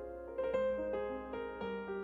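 Background piano music, a gentle melody of single notes played one after another.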